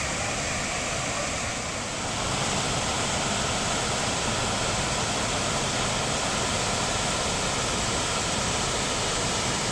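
Small lower cascade of Tinuy-an Falls, water gushing steadily.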